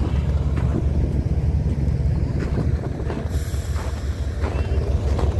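BNSF diesel-electric locomotive's engine running with a steady low rumble, with wind on the microphone and a brief hiss about three and a half seconds in.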